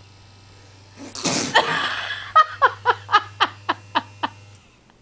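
A person sneezes once about a second in, then laughs in a quick run of about eight short bursts. An electric back massager hums low underneath and stops near the end.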